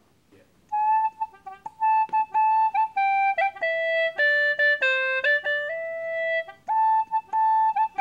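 Hulusi (Chinese gourd flute) playing a simple, slow tune by a beginner, note by note with short breaks between notes, starting about a second in.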